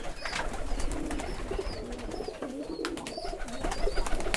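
Several Giribaz domestic pigeons cooing at once in a loft, with a few scattered sharp clicks among the coos.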